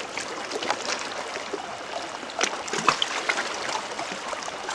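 Sea water splashing and sloshing, with a steady wash and many small, irregular splashes.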